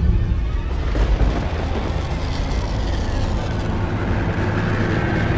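Deep thunder-like rumble and booms of a logo sound effect, with a sharp hit at the start and another about a second in, the rumble rolling on steadily after.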